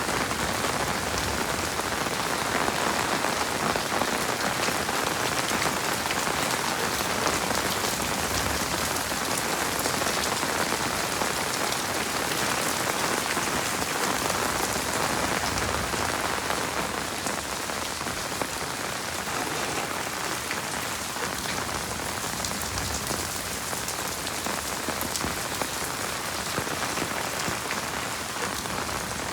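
Heavy rain falling steadily, a dense hiss of many drops, easing slightly about halfway through.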